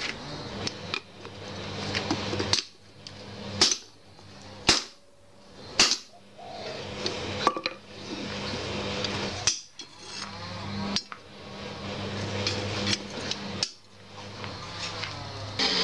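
Hammer blows on a red-hot 52100 bearing-steel parang blade against a steel anvil block during hand forging. The strikes come singly and unevenly, one to two seconds apart, each with a sharp metallic ring, over a steady low hum.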